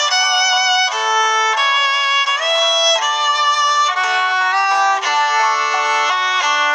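Background music played on violin: a melody of held and moving notes, often with two notes sounding together.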